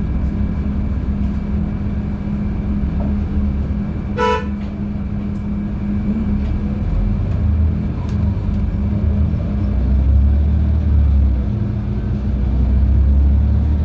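Interior of a LiAZ-5292.71 natural-gas city bus on the move: steady engine and road rumble that grows louder in the second half. A single short horn toot sounds about four seconds in.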